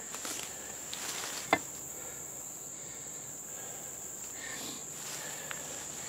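Steady high-pitched drone of insects in the surrounding woods, with one sharp knock about a second and a half in.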